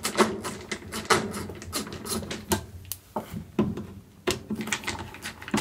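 Scattered clicks and light knocks of hands and a screwdriver on the plastic control console of a Fisher & Paykel Smart Drive washing machine as the two screws at the back of the console are taken out.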